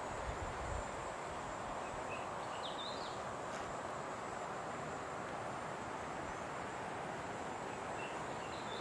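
Steady outdoor bush ambience with a thin, high insect whine over a constant hiss, and short bird chirps about two and a half seconds in and again near the end. A low rumble fades out in the first second.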